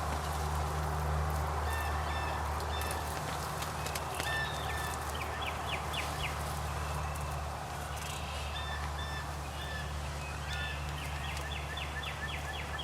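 Wild turkey yelping: quick runs of short, sharp notes, once about five seconds in and again near the end, over a steady low wind rumble.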